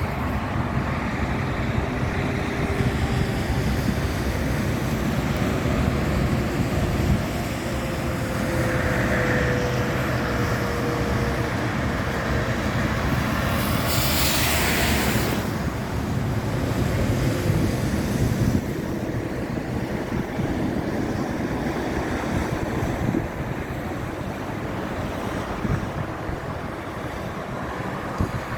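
Thunderstorm wind and rain making a steady rushing noise, with a brief surge of hiss about halfway through.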